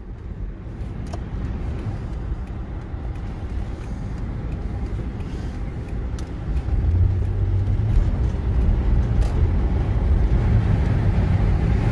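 Steady low road and engine rumble heard inside a moving car's cabin, growing louder a little past halfway through.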